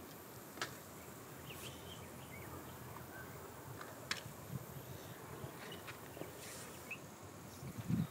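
Faint outdoor ambience: a steady hiss with a few short, high chirps, two sharp clicks, and some low thumps near the end.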